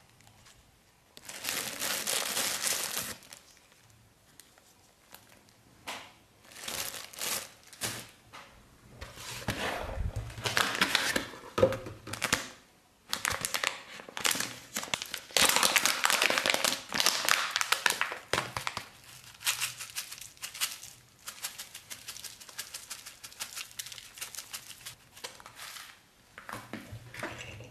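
Plastic packet of dried hot chili powder crinkling and rustling in repeated bursts as it is handled, opened and shaken out.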